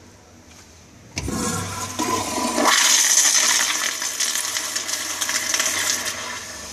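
American Standard Madera 1.6 gpf flushometer toilet flushing: a sudden rush of water about a second in, loudest a couple of seconds later, then easing off near the end as the bowl refills.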